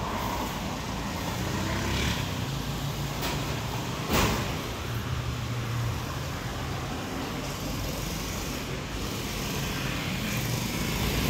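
Road traffic with a vehicle engine running close by, a steady low hum. There is one sharp knock about four seconds in.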